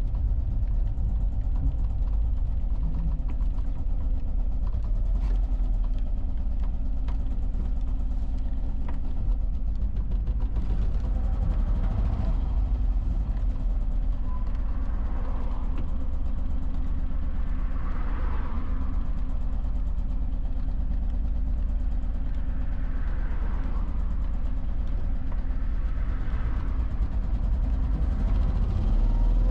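BMW Isetta's single-cylinder engine running steadily while the car drives, a constant low engine note with road and wind noise that swells and eases several times.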